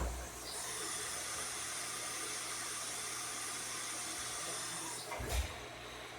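Syil X7 CNC mill running: a steady hiss with a high whine for about five seconds, cutting off abruptly, with a thump at the start and another just after it stops.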